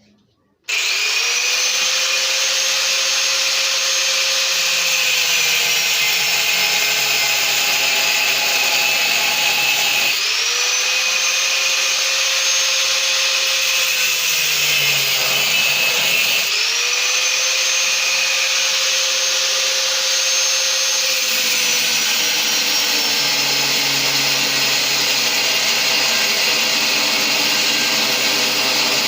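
Electric angle grinder running on metal. It is switched on three times, its whine rising as it spins up each time, then dipping and recovering in pitch as it works.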